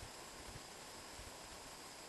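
Faint steady hiss with a few soft low bumps of wind buffeting the microphone.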